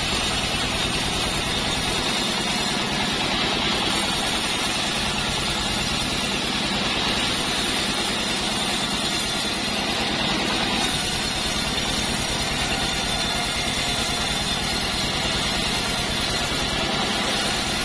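Engine-driven bandsaw mill running steadily while its blade saws lengthwise through a hard, heavy acacia log: an even engine drone with the hiss of the blade in the wood.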